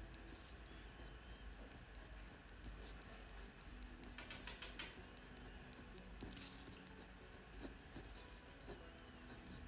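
Colored pencil point scratching across paper in many short, quick strokes, laying down fine fur lines. Faint.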